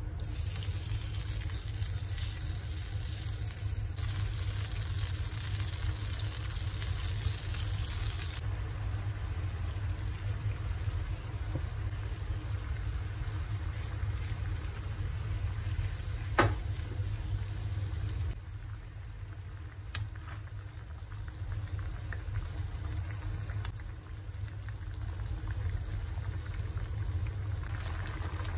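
Food sizzling and bubbling as it simmers in sauce in a frying pan, a steady hiss over a low hum. One sharp knock about halfway through.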